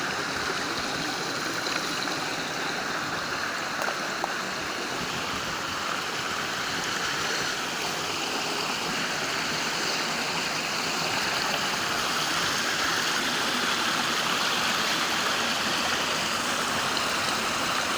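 Stream water rushing steadily, a constant even hiss of flowing water that grows slightly louder through the second half.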